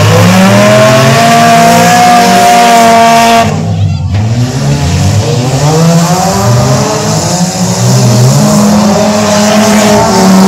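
Several bump-and-run race car engines revving at once, loud, their pitches climbing and falling as the cars accelerate and lift off. The sound cuts out briefly about a third of the way in.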